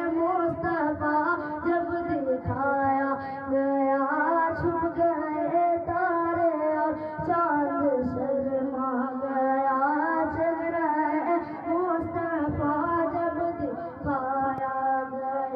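A naat, an Urdu devotional song in praise of the Prophet Muhammad, sung by a high voice in long, gliding notes.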